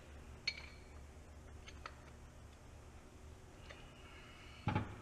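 Scattered light clicks and clinks of small metal tools and parts being handled on a workbench, with a dull knock near the end.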